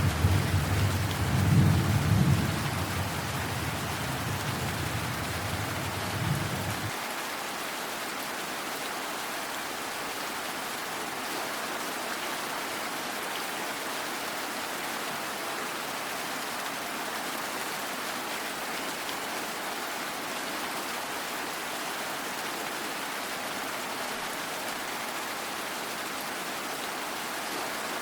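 Steady rain with a low rumble of thunder that peaks about two seconds in and stops abruptly about seven seconds in, leaving only the even hiss of the rain.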